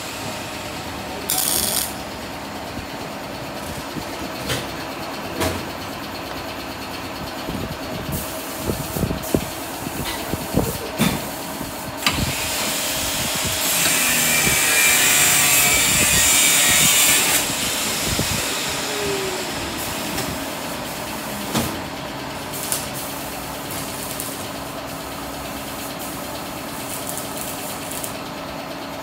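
A steady engine-like machine hum runs throughout. Scattered knocks and clatter come near the middle, followed by a loud hiss lasting about three seconds.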